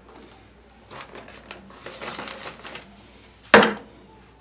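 Trowel stirring and scraping wet thinset mortar in a plastic bucket, in uneven scraping strokes, with one sharp loud scrape against the bucket about three and a half seconds in.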